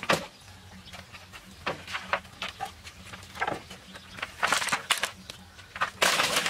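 Bamboo poles knocking and clattering against a bamboo frame as they are laid across the top of the walls: a string of sharp knocks, some in quick clusters, with a half-second rustle near the end.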